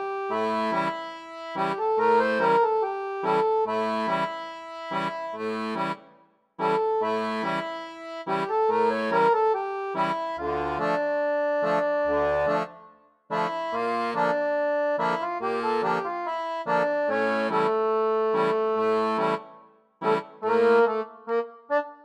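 Instrumental background music: a rhythmic tune of sustained chords, played in phrases with brief breaks about every six or seven seconds.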